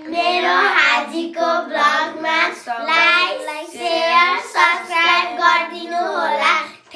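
A high voice singing a melody in sustained, wavering phrases.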